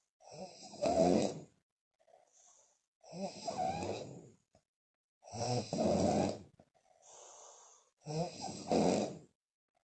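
A woman snoring loudly while asleep, puffing her lips as she breathes. There are four snores about two and a half seconds apart, with a softer breath between the third and fourth.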